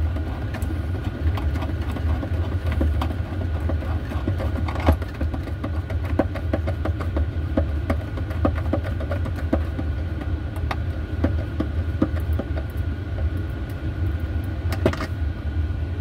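A steady low mechanical hum like a running engine, with many small irregular clicks and taps from a hand screwdriver driving a screw to mount a cabinet push-catch latch.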